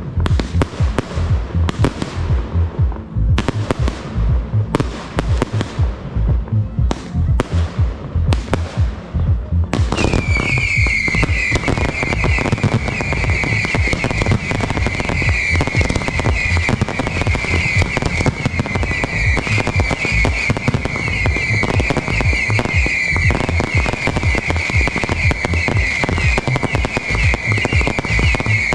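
Fireworks display: rapid launches and shell bursts bang in quick succession. About ten seconds in, a dense barrage begins, with a continuous high shrill whistling over steady bangs and crackle.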